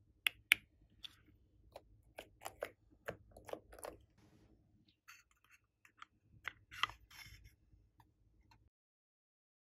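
Small hard plastic containers being handled: a pink plastic piping bag and a glitter tube clicking and tapping in the fingers. Two sharp clicks about half a second in, a run of clicks around three to four seconds, and another few near seven seconds.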